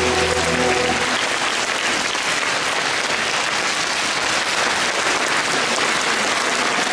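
Audience applauding steadily, with the last held notes of the dance music fading out about a second in.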